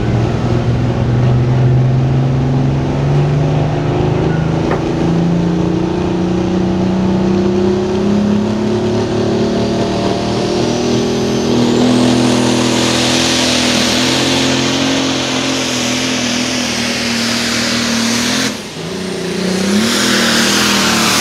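Pro stock pulling tractor's turbocharged diesel engine under full load, its pitch climbing slowly, with a high whine rising in over the middle. About eighteen seconds in the sound drops off sharply, then the engine comes back up with a wavering pitch.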